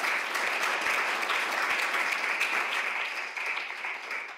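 Audience applause: many hands clapping together in a steady, dense patter that dies away near the end.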